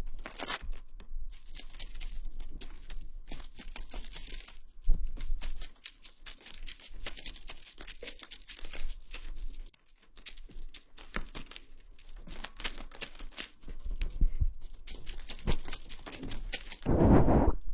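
Close-miked ASMR trigger sounds: dense crackly scratching and small clicks right at the microphone. Near the end they give way to a louder, softer whooshing sweep.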